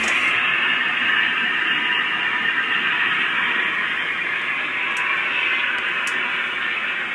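A steady, even rush of noise on an old narrow-band speech recording, with no voice in it, easing off slightly near the end.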